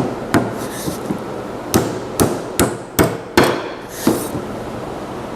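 A hammer driving large roofing nails through wooden toolbox sides: about eight sharp blows. Two come at the start, then after a pause a quick run of five, a little under half a second apart, and a last softer tap.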